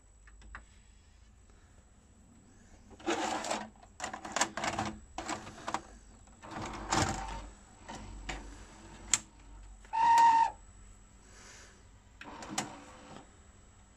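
VHS cassette being pushed into an NEC VN-31 video cassette recorder, its loading mechanism drawing the tape in and threading it: a series of mechanical clicks, clunks and short motor whirs, with a brief whine about ten seconds in.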